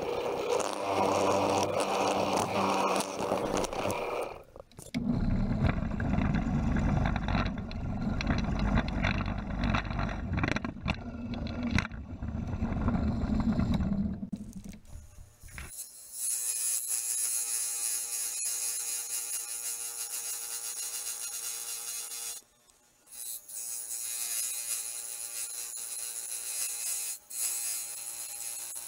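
Drill press running with a Forstner bit boring holes into a pine board, the motor loading as the bit cuts and easing between holes. About halfway through the sound changes to a scroll saw running with its blade cutting the pine, a steady high hiss that stops briefly and starts again.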